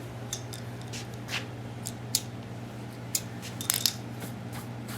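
Scattered light clicks and scrapes of hand work on a tile floor, with a few sharper ticks about three to four seconds in, over a steady low hum.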